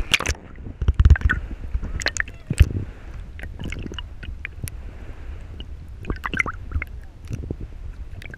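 Muffled underwater gurgling and sloshing of seawater around an action camera dipped below the surface, with scattered clicks and a few low thumps, the loudest about a second and two and a half seconds in.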